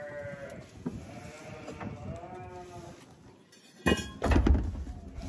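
Sheep bleating: two long, wavering calls, one at the start and one about two seconds in. About four seconds in comes a sudden loud rumble and knocking as the metal-caged IBC tote is heaved up.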